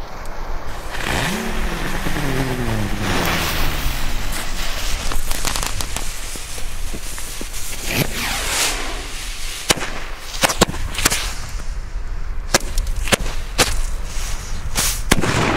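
A jumping jack firecracker (Knallfrosch) fizzing as it burns along the ground, then going off in a string of about ten sharp bangs, irregularly spaced, over the second half.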